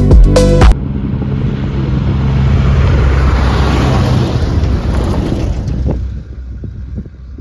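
Under a second in, background music cuts off and a semi truck hauling a livestock trailer passes close on a gravel road: a steady low engine hum with tyre-on-gravel noise that swells to a peak mid-way and fades away about six seconds in.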